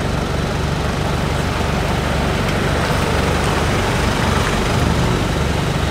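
Off-road 4x4s in a convoy driving slowly past on a dirt road, a steady noise of engines and tyres.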